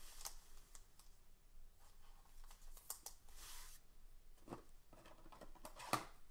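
Faint handling noises of trading cards in plastic sleeves: scattered light clicks and one short rustling slide about three and a half seconds in.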